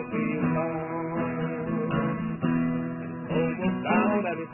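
Acoustic guitar strummed steadily, playing the chord accompaniment of a slow folk song between sung lines.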